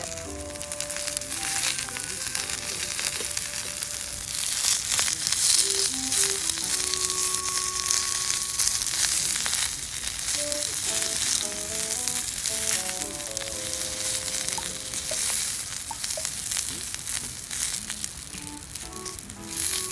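Food sizzling and crackling as it cooks over a campfire, a steady dense hiss that grows louder about four seconds in, under quiet background music with a simple melody.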